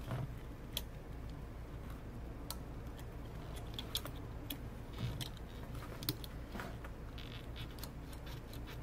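Faint, irregular small clicks and light scraping as a phone's logic board is pried up and worked loose from its metal frame with gloved hands.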